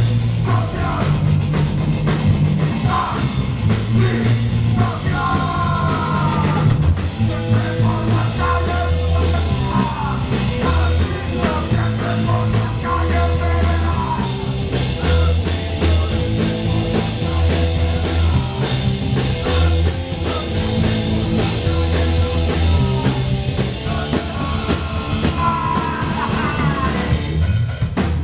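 Live punk rock band playing at full volume: electric guitar, bass guitar and drum kit, with a singer yelling into a microphone. The bass steps through a repeating riff under steady drum beats.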